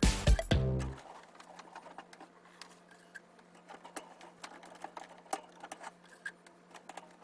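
Background music cuts off about a second in. After it come faint, irregular light clicks and taps of hand work, over a steady low hum.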